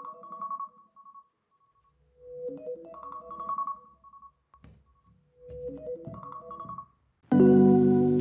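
Smartphone alarm ringing: a short tune of pitched notes played three times, about three seconds apart. Near the end, loud music with a sustained chord comes in.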